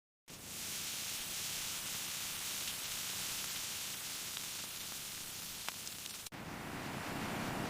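Steady hiss like static, starting abruptly from dead silence, with a few faint clicks; about six seconds in it cuts suddenly to a different, fuller and deeper rushing noise.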